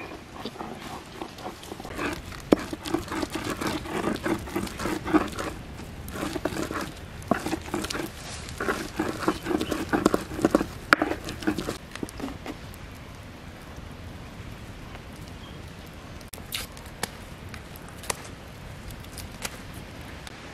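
A hand stone being rubbed back and forth over a flat grinding stone, crushing a paste in rhythmic scraping strokes that stop a little past halfway. A few faint, sharp clicks follow near the end.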